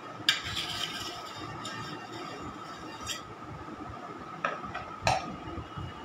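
Metal palette knife scraping and tapping on an aluminium cake turntable, giving a few sharp clinks. The loudest comes just after the start and is followed by a short scrape; there are lighter ones in the middle and another strong clink about a second before the end.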